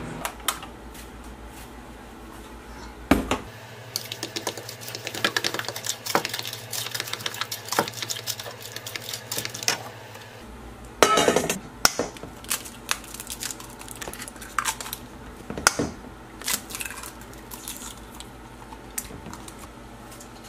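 Kitchen utensils clinking and scraping: a spoon stirring in a plastic measuring cup, then a silicone spatula mixing brownie batter in a stainless steel bowl. Many quick small clinks, with a few louder knocks.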